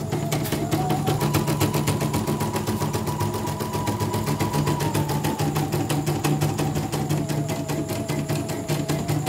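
CNY portable computerised embroidery machine stitching at speed, its needle bar making a rapid, even clatter over the motor's hum. The motor whine rises about a second in and drops back after about five seconds as the hoop moves between stitches. This is a test stitch-out after repair of a Y-axis hoop frame error and total jam.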